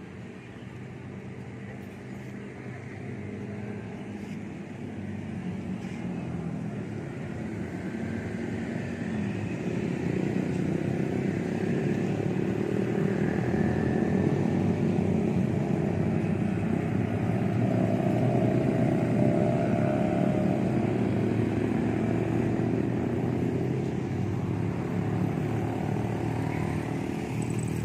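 Road traffic of motorcycles and cars running past, getting louder toward the middle as vehicles come close, then easing off.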